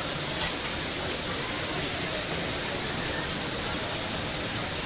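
Steady rushing noise of a restaurant kitchen with kebab skewers cooking over a charcoal grill.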